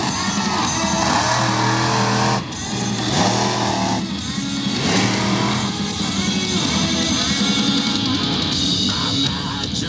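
Rock music with guitar and drums, mixed with a monster truck's engine running and revving during its freestyle jumps.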